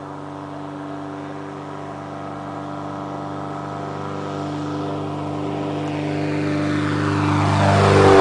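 Cessna 182's piston engine and propeller on a fast low pass, a steady droning note growing louder as the plane approaches along the strip, loudest at the end as it flies close overhead.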